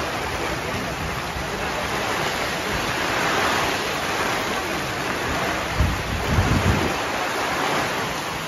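Heavy rain pouring down in a dense, steady hiss, with a few low thumps about two-thirds of the way through.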